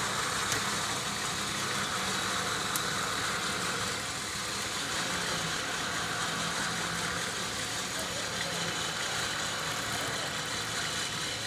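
Nissan Patrol 4x4's engine running at low, steady revs as the SUV crawls slowly forward, with small changes in pitch.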